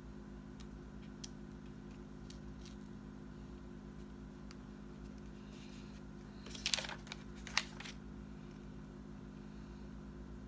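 Quiet paper and sticker handling while stickers are peeled and pressed onto a planner page: a few faint ticks, then a brief crinkle with two sharp clicks about two-thirds of the way through, over a steady low hum.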